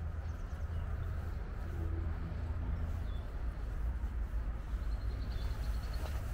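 Steady outdoor background of low rumble and rushing noise, with a bird giving a quick string of short high chirps about five seconds in.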